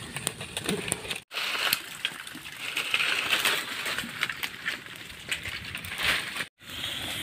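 Dry leaf litter crackling and rustling: a fire of dry leaves and sheaths burning with many small sharp crackles while more dry leaves are pushed and crunched onto it. The sound breaks off twice into a brief silence.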